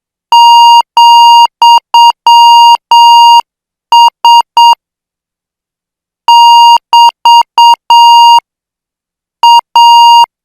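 Morse code sent as a steady beeping tone near 1 kHz, keyed in short dots and longer dashes at about 8 words a minute. The code comes in five-character groups, separated by pauses of a second or so.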